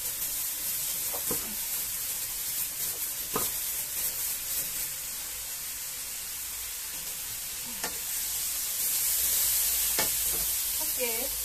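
Paste frying in a wok over a gas flame: a steady, high sizzling hiss with a few faint clicks, growing louder for a moment near the end.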